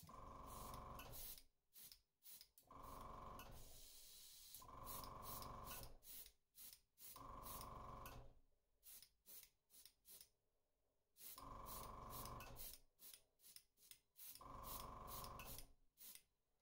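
Faint airbrush spraying in six short bursts of about a second each, every burst a steady hiss with a faint whistle, with pauses between them.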